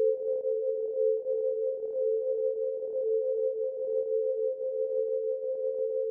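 Two steady electronic tones close together in pitch, held as one continuous drone that wavers slightly in loudness.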